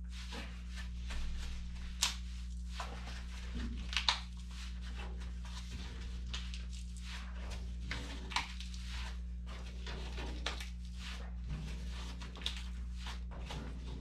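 The fabric head of an Inuit frame drum rustles as it is hauled tight over the wooden hoop. Scattered small clicks and taps run through it, with a few sharper ticks. A steady low hum sounds underneath.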